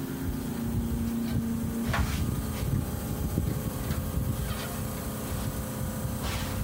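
A small electric motor in the car, switched from its toggle-switch panel, hums steadily and cuts off with a click about two seconds in. After it, a low, uneven rumble with a few faint clicks.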